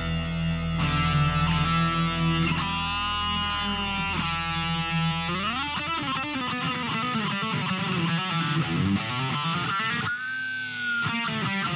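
Instrumental rock passage led by an electric guitar. Held notes that slide and bend give way, about five seconds in, to a rising slide and a run of quick notes, and a single high note is held with vibrato near the end.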